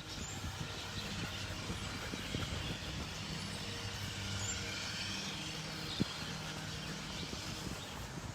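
Steady low engine hum with a faint background haze, and one short click about six seconds in.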